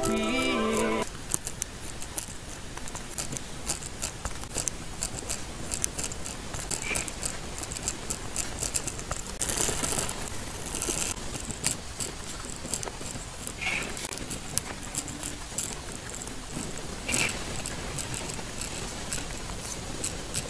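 A pen writing on lined notebook paper: short scratchy strokes and small taps in quick, irregular succession. A snippet of music cuts off about a second in.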